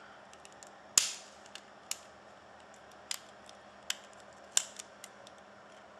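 Sharp plastic clicks and snaps, about half a dozen spread over the seconds, the loudest about a second in, with fainter ticks between: the clips of a BlackBerry Torch 9800's front bezel popping loose as it is pried off.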